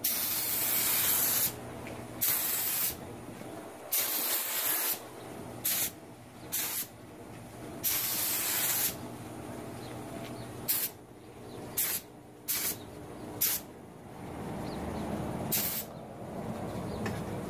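Gravity-feed air spray gun hissing in a dozen or so separate bursts as the trigger is pulled and released, each pass laying silver paint on a plastic trim molding. The longest burst lasts about a second and a half, and most are short.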